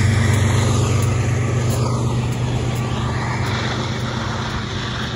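Two GE ES44AC diesel locomotives, the rear distributed-power units of an empty coal train, passing and moving away. Their GEVO-12 engines give a steady low drone over train running noise that slowly fades.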